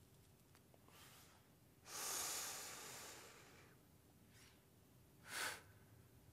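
Breath of cigarette smokers exhaling smoke: a long breathy exhale about two seconds in that lasts nearly two seconds, and a short sharp puff of breath near the end.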